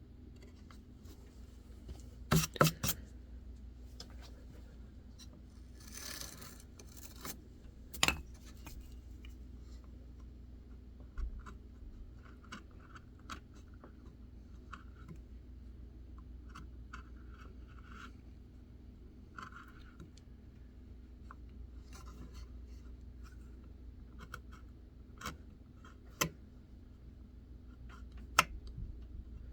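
A blade hand-carving white birch: short, scattered cutting and scraping strokes through the wood. A few sharp clicks and taps come from the tool and workpiece, a cluster of them about two seconds in and more near the end.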